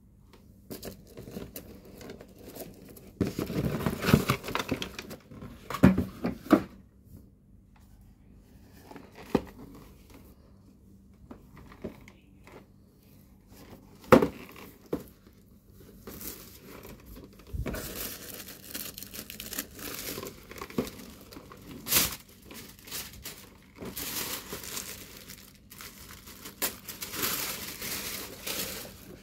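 Plastic packing wrap crinkling and rustling in irregular bursts as a boxed item is lifted from a cardboard shipping carton and unwrapped, with a sharp knock of the box about halfway through and another later on.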